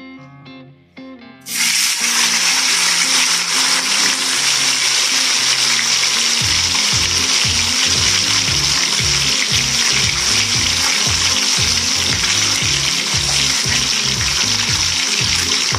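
Seasoned fish fillets laid into hot oil in a frying pan, setting off loud, steady sizzling that starts suddenly about a second and a half in. Background music plays underneath.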